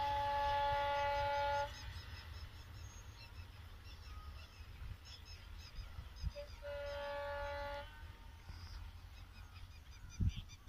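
Train horn sounding a steady two-tone blast that stops about a second and a half in, then a second shorter blast a little past the middle. Under it is a low rumble with faint bird chirps, and a short low thump comes near the end.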